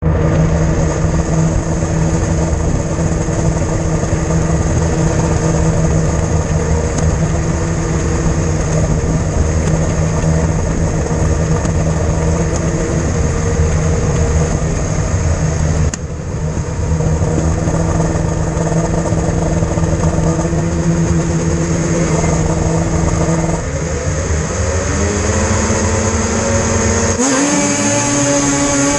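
Several two-stroke racing snowmobiles idling together on a start line, a loud steady engine drone. Near the end the engines rev up with rising pitch as the sleds launch off the line.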